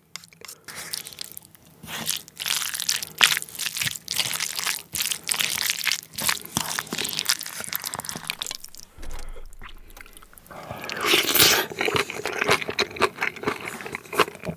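Chopsticks stirring canned tuna mayo and stir-fried kimchi in a ceramic bowl, with wet squelching and many small clicks of the chopsticks against the bowl. It eases off briefly, then comes back loudest near the end as a wooden spoon scoops up a mouthful.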